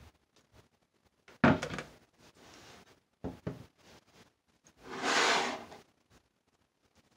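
Knocks of a filled silicone soap mold and a silicone mixing bowl being set down on a countertop: one sharp knock, then two lighter ones. This is followed by a short scraping rush as the mold is slid across the counter.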